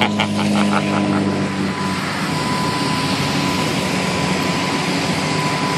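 Steady rushing noise of road traffic, with a vehicle's low engine hum in the first two seconds and a thin, steady high tone.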